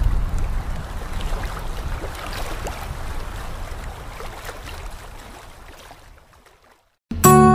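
Logo-intro sound effect: a noisy rumbling whoosh with scattered faint glittery ticks, strongest at the start and fading out over about six seconds. Music starts abruptly just before the end.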